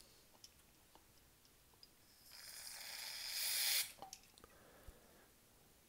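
Aerosol can of brake cleaner sprayed through its straw nozzle into a carburetor's jets and passages to flush them clean: one hiss about a second and a half long, starting a little after two seconds in, growing louder and cutting off sharply.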